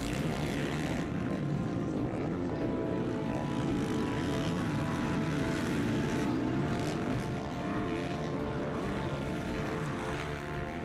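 Motocross bike engines running at high revs as riders race around a dirt track, a steady droning mix of several machines.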